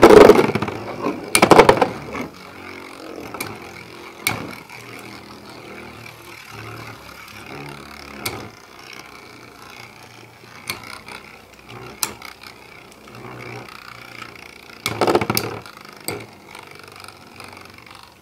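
Two Metal Fight Beybladess, Dark Bull and Lightning L-Drago, ripped from their launchers into a plastic stadium with a loud rip and clatter, then whirring as they spin. Sharp clacks come now and then as they strike each other, with a louder run of clashes near the end.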